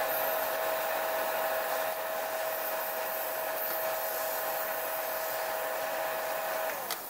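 Handheld laser welding machine running: a steady whirring rush with a steady whine through it. Near the end the whine glides down in pitch and the sound drops as the motor winds down, followed by a single click.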